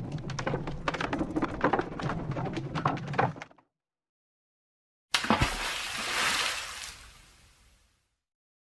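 Sound effects: a dense clattering rumble of many sharp clicks over a low hum, which stops abruptly. After a moment of silence comes a sudden crash, followed by a rush of noise that fades away over about three seconds.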